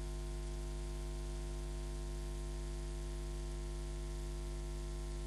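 Steady electrical mains-type hum with hiss, with no commentary or crowd: the broadcast audio has dropped out in a signal glitch of the recorded TV feed.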